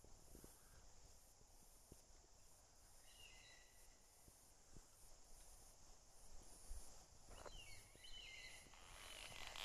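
Quiet bush ambience: a bird gives two short bursts of warbling chirps over a steady faint high hiss, with a louder rustle near the end.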